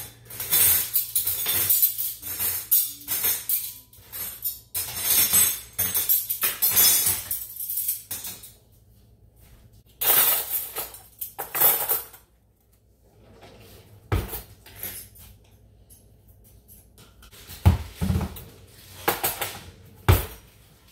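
Metal and glass kitchen utensils and dishes clattering and scraping as they are handled on a countertop, busy for the first several seconds, then a few dull thumps of containers being set down on the counter near the end.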